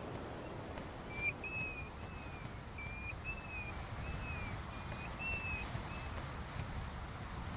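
A bird calling: a series of about eight short whistled notes, each level or falling slightly, over steady low background noise.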